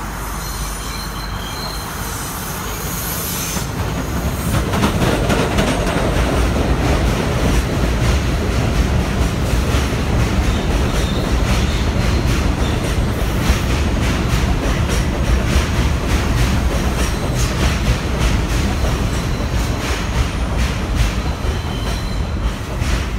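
R62A subway train running into an elevated station. Its wheel-on-rail rumble grows louder about four seconds in as the cars come alongside, with a rapid clatter over the rail joints and some wheel squeal.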